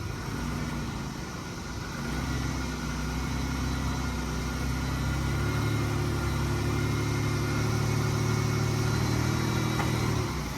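A vehicle engine running near idle, stepping up to a higher steady speed about two seconds in and again about halfway through, then easing off just before the end.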